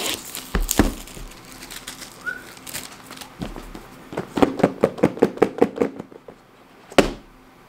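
Plastic shrink wrap crinkling off a cardboard phone box, then the box handled and worked open: a quick run of about six scraping clicks a second for nearly two seconds, and a single sharp tap near the end.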